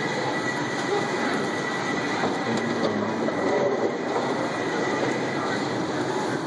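Moving walkway running steadily, a continuous mechanical rolling noise with a thin high tone held throughout.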